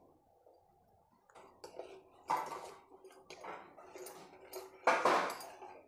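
A steel spoon stirring sugar and water in a small pan, scraping and clinking against the bottom in irregular strokes. The stirring starts about a second in, and two louder scrapes stand out.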